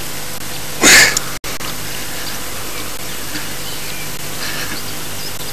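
Steady hiss with a faint hum, typical of an old camcorder's soundtrack. About a second in there is a short loud rush of noise, then a split-second dropout in the sound.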